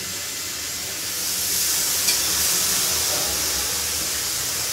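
Steady hissing spray of water and steam, building about a second in, as the hot grill pan is rinsed for cleaning.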